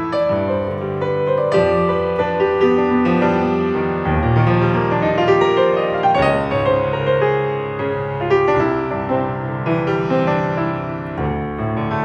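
Solo Steinway grand piano playing a flowing, continuous stream of notes over sustained chords, with a deeper bass register coming in about four seconds in.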